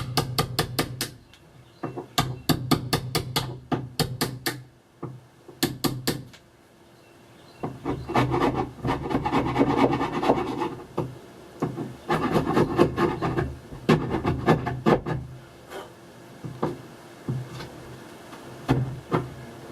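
Scraping and rubbing on wood by hand in several spells: the first two are quick runs of sharp clicks, the later ones longer, denser rasping.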